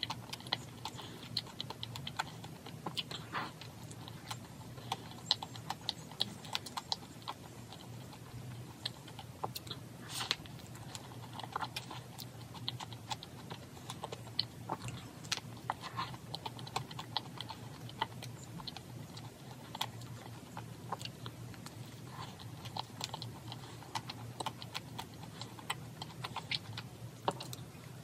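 Close-up eating sounds: chewing with many small, irregular clicks and taps, over a steady low hum.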